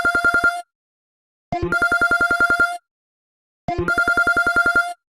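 Mobile phone ringtone in an old telephone-ring style: a fast trilled ring about a second long, repeating three times with short silent gaps.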